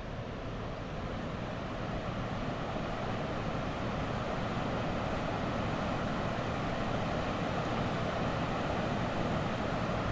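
Steady rushing of a flooded river pouring over a low bridge, an even wash of water noise with no let-up.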